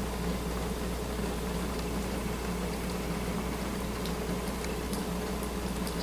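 Steady low hum and hiss with faint, scattered light ticks.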